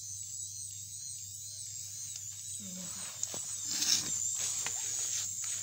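Small yellow plastic DC gear motor of a homemade battery-powered toy car running with a steady, high whine. About three to four seconds in come a few knocks and a scrape as the car is set down on concrete, the loudest near the four-second mark.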